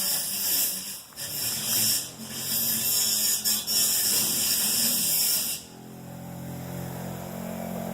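Angle grinder cutting sheet metal: a harsh, high hissing grind that dips briefly twice and cuts off sharply about five and a half seconds in, leaving a steady motor hum.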